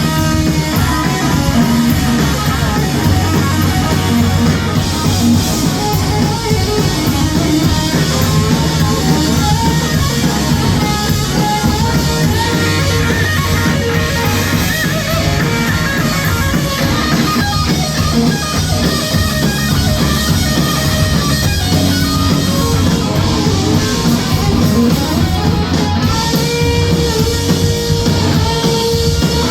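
A heavy metal band playing live, with distorted electric guitars and a drum kit, loud and continuous.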